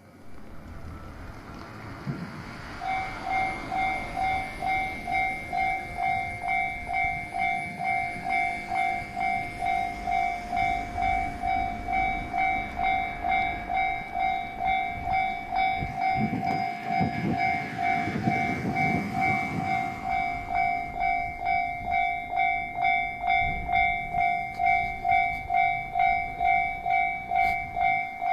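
Level-crossing warning bell ringing in even pulses, about two a second, starting about three seconds in. A 1200-series diesel railcar train passes over the crossing, its engine and wheel rumble loudest in the middle.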